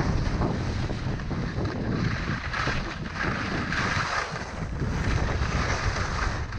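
Wind rushing over the helmet camera's microphone as skis turn and scrape down firm, wind-packed snow at speed, with a louder hissing stretch of edge scrape in the middle.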